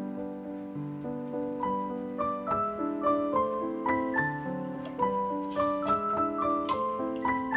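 Background piano music: a gentle melody over steady chords.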